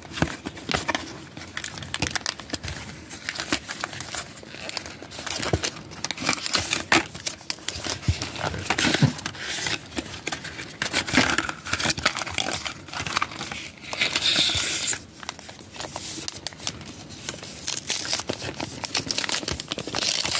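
Paper and foil packaging of Happy Meal Pokémon card packs crinkling and tearing in fits and starts as the packs and boxes are opened, with the cards handled between the hands.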